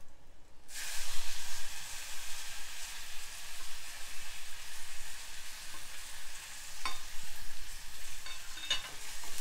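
Fresh tender tamarind leaves sizzling in hot oil in a steel kadai, the steady hiss starting suddenly under a second in as they hit the oil. A couple of sharp clicks sound in the second half.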